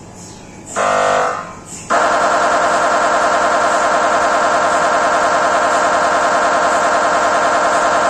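GE MRI scanner's gradient coils during a scan: a short tone about a second in, then about two seconds in a loud, fast, steady buzzing pulse sequence starts and keeps going.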